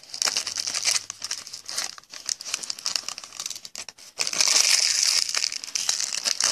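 Foil wrapper of a 2016 Topps Tribute baseball card pack crinkling and crackling as it is torn open and handled. It comes in two loud spells: through the first second, and again from about four seconds in.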